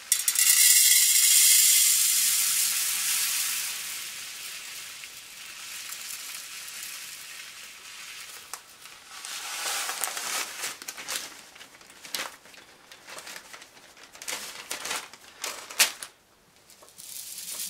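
Silica gel desiccant beads pouring out of a plastic bag into a small metal mint tin: a loud steady hiss of falling granules that thins out after a few seconds. It is followed by the plastic bag crinkling and rustling, with scattered small clicks.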